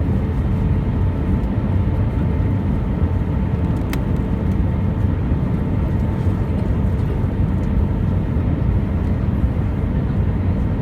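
Steady cabin noise of an Airbus A320 airliner: a deep, even rumble of engines and airflow with faint steady hum tones. There is one brief click about four seconds in.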